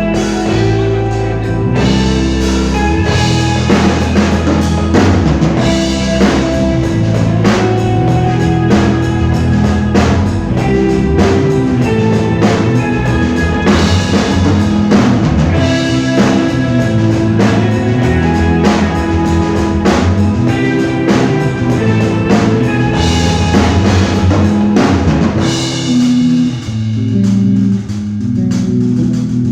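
A live band plays a pop-rock song on drum kit and guitars, with a steady drum beat under sustained chords. The drums thin out briefly near the end, then come back in.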